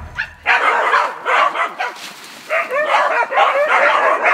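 A pack of hunting dogs barking and yelping in quick, overlapping bursts, with a short lull about two seconds in.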